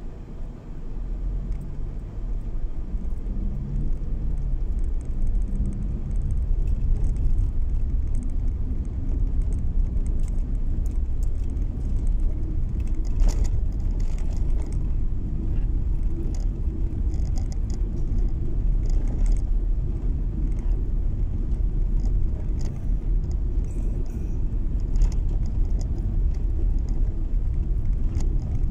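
Car interior driving noise on a snow-packed road: a steady low rumble of tyres and engine that builds over the first several seconds as the car gathers speed, then holds, with scattered faint ticks and rattles.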